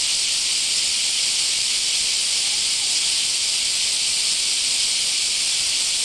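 Japanese cicadas (semi) calling in a dense chorus: a loud, steady, high-pitched buzz that never lets up.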